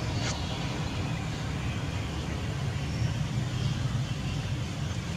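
Steady low outdoor rumble, with a brief sharp sound just after the start and faint high chirps.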